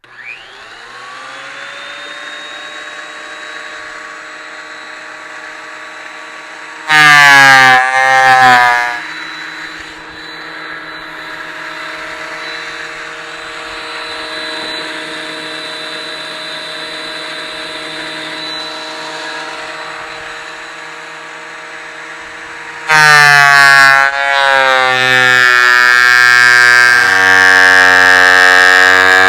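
Ridgid benchtop thickness planer switched on and spinning up, running steadily without load, then cutting loudly as planks feed through: the motor's pitch drops under load in a short cut about seven seconds in, and again from about 23 seconds in, the second cut lasting longer.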